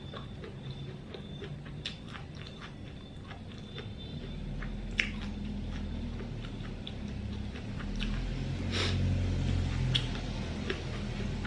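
Close mouth sounds of chewing fresh rice-paper spring rolls with shrimp, pork and greens: many small wet clicks and smacks. A low rumble builds underneath from about four seconds in and is loudest near the end.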